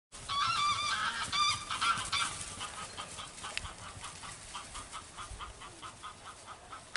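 Geese honking: several loud calls in the first two seconds, then a quieter run of short, regular calls, about three a second.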